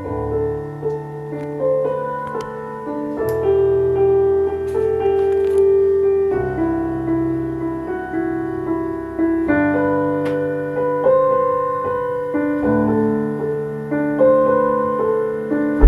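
Quiet piano-like keyboard intro of an electronic track played over a stereo system's speakers, soft sustained chords changing about every three seconds with single notes over them, before the bass comes in.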